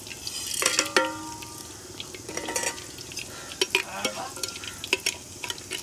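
Whole spices (cinnamon, pepper, cardamom, cloves, nutmeg) tipped from a steel plate into hot coconut oil in a clay pot. There is a short ringing clink of metal a little under a second in, then the spices crackle and sizzle in the oil.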